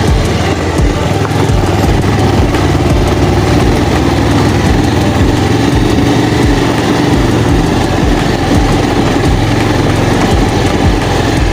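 Motorcycle engine running steadily while riding on a rough offroad track.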